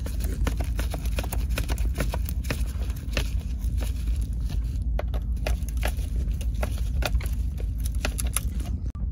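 Stainless worm-gear band clamps on a rubber drain-pipe coupling being tightened with a nut driver: a run of irregular sharp clicks and taps, several a second, over a steady low rumble.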